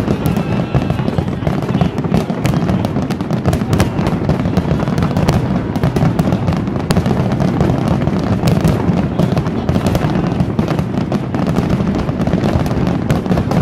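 Barrage of aerial firework shells bursting in rapid succession: dense, overlapping sharp reports with no gaps, over a steady low rumble.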